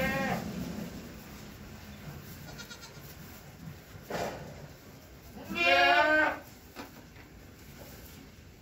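Goats bleating: one call at the start, a short one just after four seconds, and a long, wavering bleat near six seconds, the loudest.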